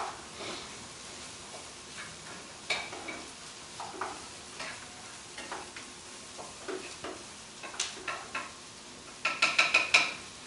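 Food sizzling in a pan on a stove, with scattered scrapes and clinks of a utensil stirring it. About nine seconds in comes a quick run of ringing metallic clinks, the loudest sound.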